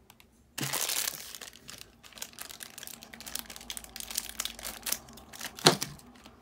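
Crinkly plastic toy wrapper being cut with scissors and pulled and crumpled by hand. The rustling and crackling starts suddenly about half a second in and goes on as many short crackles, with one louder crackle near the end.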